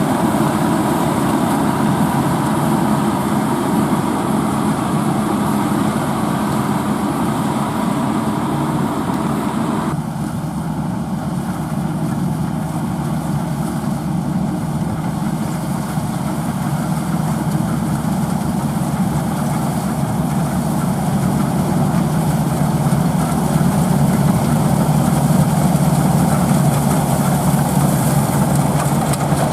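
Heavy farm-machinery engine running steadily; the sound changes abruptly about ten seconds in and grows somewhat louder near the end.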